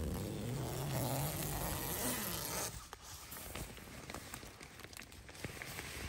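Tent door zipper being drawn open in one long rasping pull that stops about two and a half seconds in. Quieter rustles and small ticks follow.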